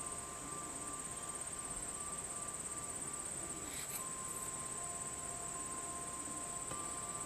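Summer insect chorus: a steady, high-pitched pulsing trill, with lower steady insect tones that drop in and out and a faint click about four seconds in.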